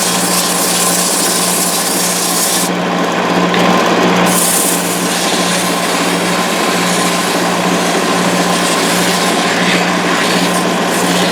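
Wood lathe running with a tool working the spinning finial blank: a steady motor hum under a scraping hiss of wood being cut away, which swells and eases several times as the tool's contact changes.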